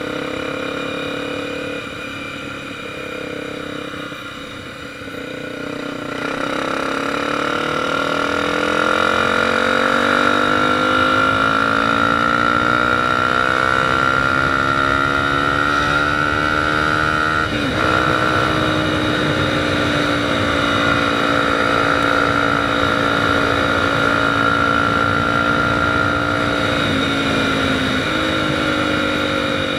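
Motorcycle engine under way, its pitch climbing steadily for about ten seconds as it accelerates, then a sharp break at a gear change just past halfway, after which it runs at a steady pitch.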